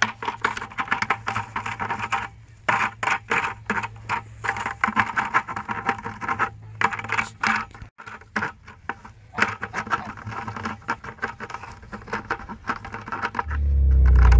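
Toulouse goose pecking and biting at the rim of a plastic bucket: rapid clusters of beak clicks, taps and scrapes on the plastic, with short pauses between bouts. Near the end a loud booming sound comes in.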